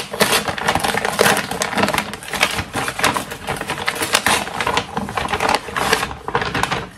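Parcel packaging being opened by hand: a dense run of crackles and rustles as the wrapping is handled and torn.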